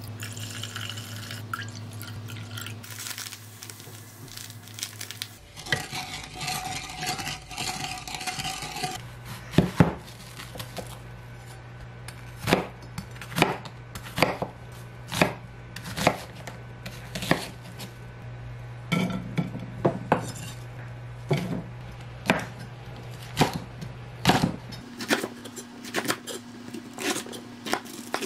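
Soy sauce poured from a plastic bottle into a stainless steel saucepan, followed by more liquid poured in. From about ten seconds in, a chef's knife chops an onion and green chili peppers on a wooden cutting board, about one sharp knock a second.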